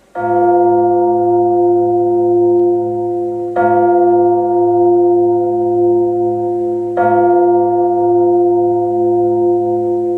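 A deep bell tone is struck three times, about three and a half seconds apart. Each stroke rings on steadily into the next. This is the opening of a song's recorded accompaniment.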